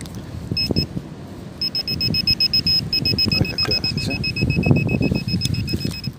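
Metal detector beeping on a target just under the leaf litter: two short beeps, then a fast, even run of several beeps a second from about a second and a half in until just before the end, over rustling leaves.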